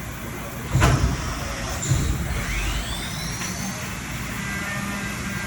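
CNC drill and tap center running: a sharp clunk, then a thud about a second later, then the spindle spinning up with a rising whine that levels off into a steady machine hum.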